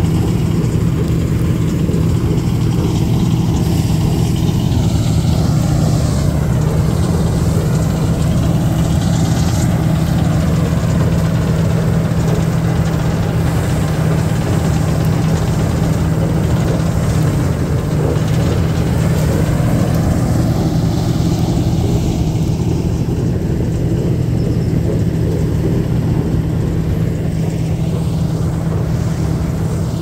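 Combine harvester's diesel engine running steadily under load while harvesting soybeans, a continuous low hum whose tone shifts slowly at times.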